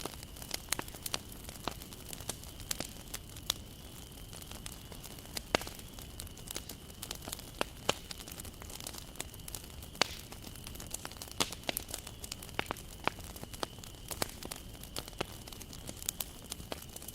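Wood fire burning in a campfire, crackling with irregular sharp pops and snaps over a low steady hiss.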